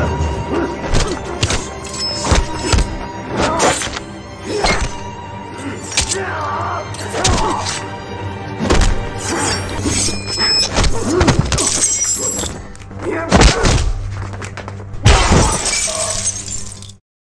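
Martial-arts fight-scene soundtrack: music over a rapid series of punch and kick impacts, with grunts and groans and glass shattering. The sound cuts off abruptly shortly before the end.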